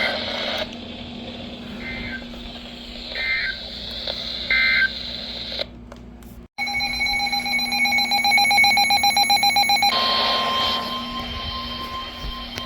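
Radio alert tones: a few short electronic beeps, then about six and a half seconds in a loud, rapidly pulsing electronic tone for about three seconds, followed at about ten seconds by a steady single-pitched alarm tone, the weather radio warning tone that marks a new warning.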